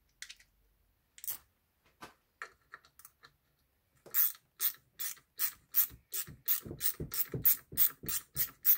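Ratchet wrench being swung back and forth on a fastener: a few scattered clicks, then from about four seconds in a quickening run of short ratcheting strokes, about three a second.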